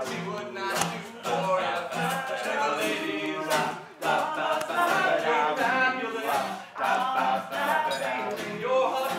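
Several voices singing a song together, with a strummed acoustic guitar.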